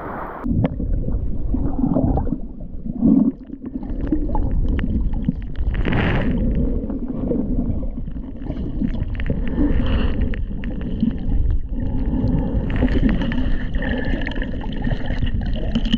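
Muffled underwater sound recorded by a camera in a waterproof housing: a steady rumble of water with gurgling bubbles.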